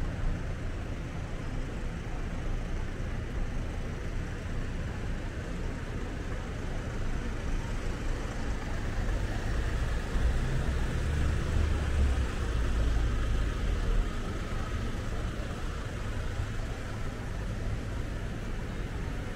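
Street traffic noise: a steady hum of road vehicles, with a louder low rumble for a few seconds about ten seconds in.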